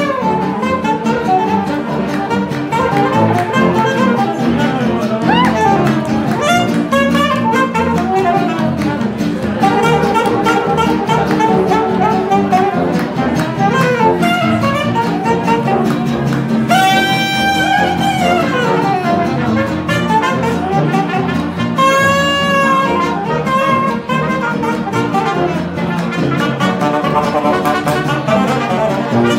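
Small jazz band playing live: saxophone lead over archtop guitar and tuba. A trumpet cuts in twice with loud, bright held notes, a little past halfway and again near three-quarters of the way through.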